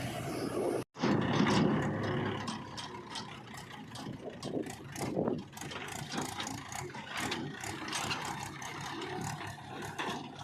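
Diesel engine of heavy earthmoving machinery running, with frequent rattles and clanks over it. The sound cuts out for a moment about a second in.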